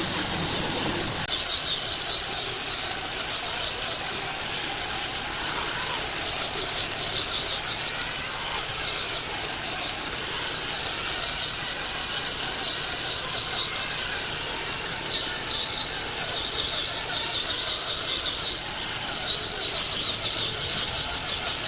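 A machine running steadily with a high, wavering squeal; a lower hum drops out about a second in.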